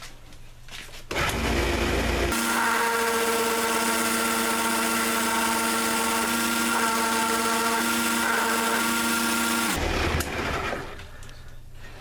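Small sander with a 1-inch wheel switched on about a second in, coming up to speed and running with a steady whine for about seven seconds while grinding a finger groove into a knife handle, then switched off and spinning down.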